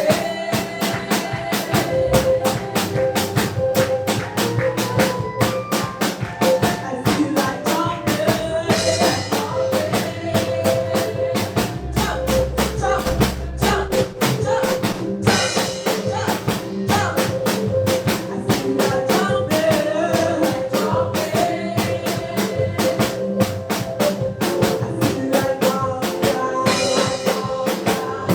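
Gospel praise band playing an instrumental passage: a drum kit keeps a steady, busy beat of kick, snare and rimshots over bass and sustained chords.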